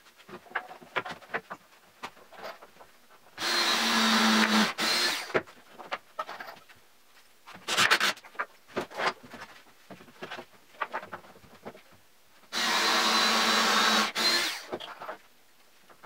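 Cordless drill running into pine bed slats in two steady spells of about a second and a half each, with a brief third run in between. Knocks and clatter of the boards being handled and set on the frame come in between.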